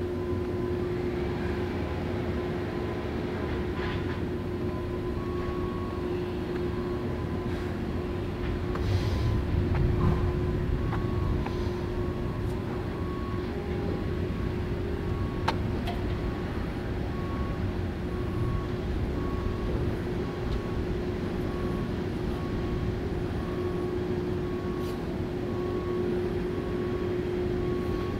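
Steady low mechanical rumble with a constant droning hum. From about five seconds in, a faint high beep repeats at an even pace, and the rumble swells briefly near the middle.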